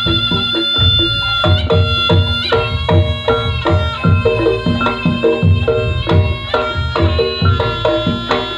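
Reog Ponorogo gamelan music. A slompret shawm holds one long reedy note, then stops about two and a half seconds in. Kendang drums keep a steady beat throughout, with ringing strikes from the bronze gong-chimes.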